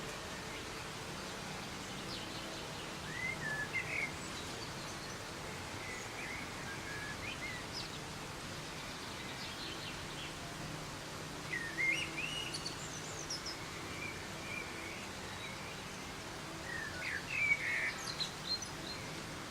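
Steady hiss of soft rain, with a songbird chirping short, quick phrases three times over it.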